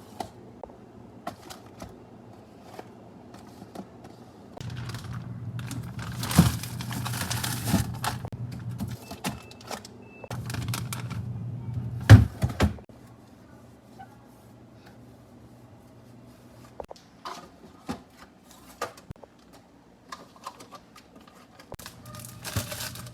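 Light clicks and knocks of plastic containers and items being handled and set down while a refrigerator is cleaned and organised, with a sharper knock about twelve seconds in. Two stretches of steady low hum with hiss come in around five and ten seconds in.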